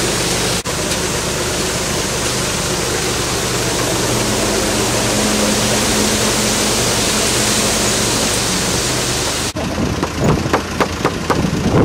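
Concrete mixer truck's engine running steadily under a loud, even rushing hiss. Near the end the sound changes abruptly to irregular knocks and scrapes.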